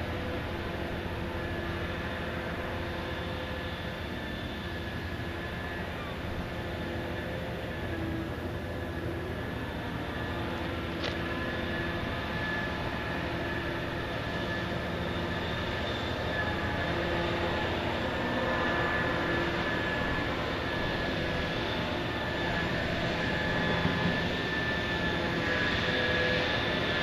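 Steady drone of heavy diesel machinery with several steady tones running through it, growing a little louder toward the end: the Liebherr P995 dredging backhoe and its vessel working.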